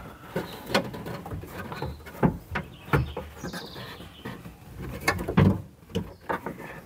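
Irregular clicks, knocks and light thuds of hands working parts inside a car door's cavity while the door-lock assembly is fitted back in place.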